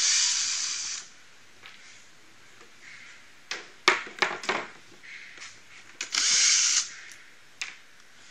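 Cordless drill with a number 2 Phillips bit running in two short bursts, backing screws out of the top of the metal basket support bars. A few sharp clicks and knocks come between the two bursts.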